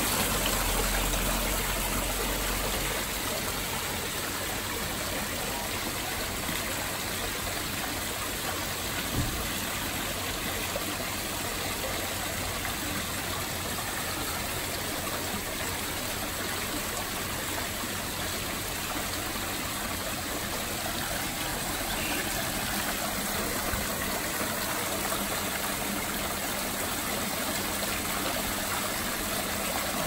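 Water pouring down the tiers of an artificial rock waterfall and splashing into its pond: a steady splashing rush, with one light knock about nine seconds in.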